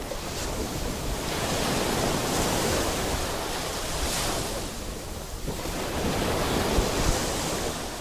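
Surf washing onto the beach, with wind buffeting the microphone. The wash rises and falls in two long swells, with a lull about five and a half seconds in.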